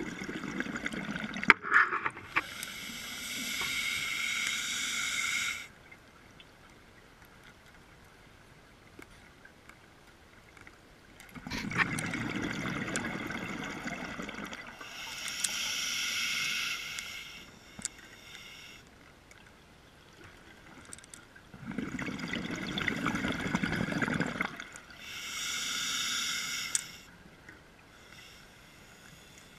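A scuba diver breathing through a regulator underwater, about once every ten seconds: a rumbling burst of exhaled bubbles, then the hiss of the next breath drawn through the regulator, three times. A couple of sharp knocks come about two seconds in.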